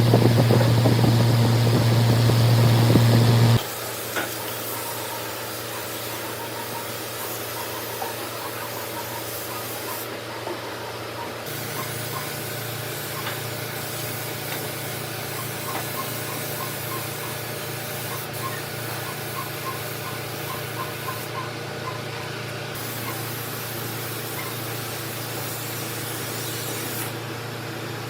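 A loud steady machine hum that cuts off abruptly after about three and a half seconds, followed by a quieter steady hiss with a low hum and faint light ticks.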